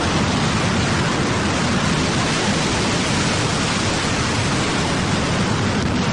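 A loud, steady rushing noise with no distinct events in it.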